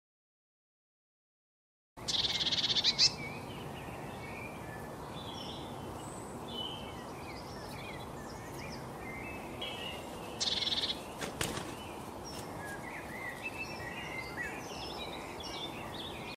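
Silent for the first two seconds, then small songbirds chirping and twittering over a steady outdoor background. A short fast rattle, about a second long, comes as the sound begins, and a second, quieter one comes about two-thirds through.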